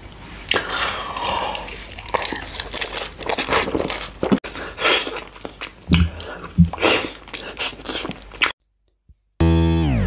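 Close-miked eating sounds: irregular biting and crunchy chewing of food. They stop about eight and a half seconds in, and after a brief gap music begins just before the end.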